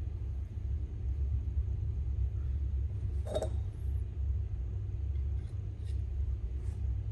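Copper pipes and a flux brush being handled on a metal workbench over a steady low rumble: a single clink a little over three seconds in, then a few faint taps as the plain pipe end is pushed into the swaged end.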